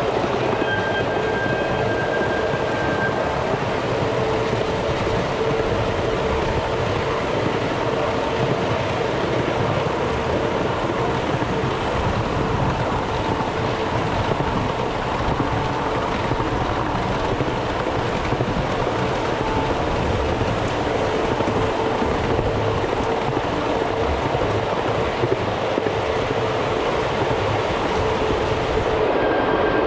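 Ride-on miniature train running steadily along its track, heard from aboard: a continuous rumble of wheels on rails with a faint steady tone over it.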